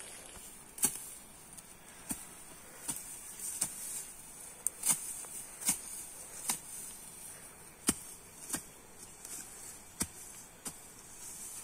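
Hoe blade chopping into dry grass and soil, a regular run of short, sharp strikes about one a second.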